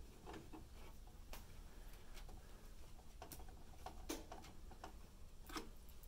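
Faint, irregular clicks and ticks of a screwdriver turning motherboard screws down into the metal standoffs of a PC case, with small metal-on-metal taps as the tool and screws meet the case.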